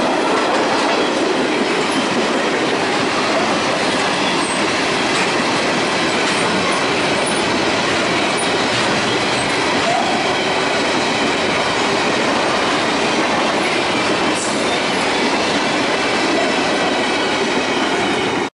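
Freight train rolling past close by, its tank cars and covered hoppers making a steady loud noise of steel wheels on rail.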